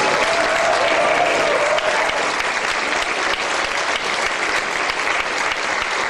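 Audience applauding steadily, a dense, even clapping from many hands. A faint wavering tone rides over it in the first two seconds.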